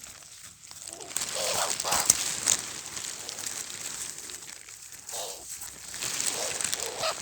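Rustling, crinkling noise in two longer stretches, starting about a second in and again about six seconds in, with a few faint muffled voice-like sounds between them.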